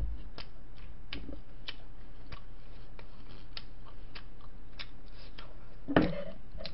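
Faint, irregular clicks, spaced a few tenths of a second apart, over a low steady hum; a brief louder sound about six seconds in.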